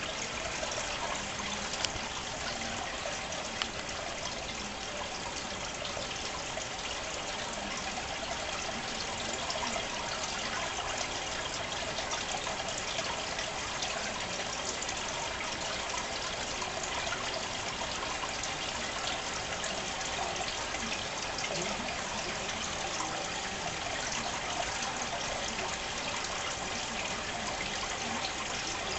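Steady trickling and splashing of water circulating in a fish tank.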